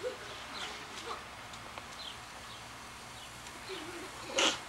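Garden hose spraying water in a steady hiss, with faint short chirps scattered through it and a brief loud burst near the end.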